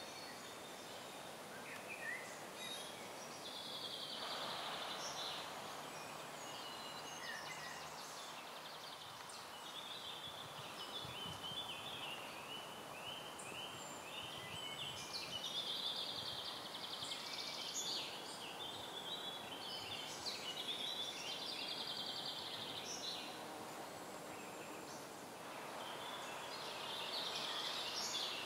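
Several songbirds singing, a mix of short chirps and quick trills, over a steady outdoor hiss.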